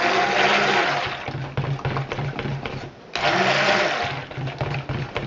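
Electric stick blender running in cold-process soap batter in a plastic bowl, in two loud bursts of a second or so each with a quieter stretch between, bringing the batter to a light trace.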